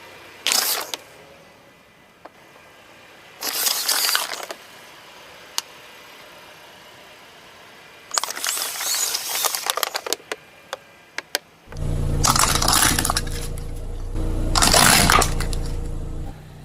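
Objects crunching and crackling as a car tyre crushes them, in five separate bursts, the third lasting about two seconds. About three quarters of the way through a low steady hum starts and runs under the last two bursts.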